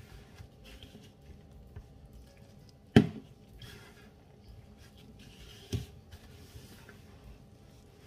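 Gloved hands rubbing and squeezing crumbly meat pie dough in a plastic bowl, a soft rustling, crumbling sound. Two sharp knocks cut through it, the louder about three seconds in and another just before six seconds.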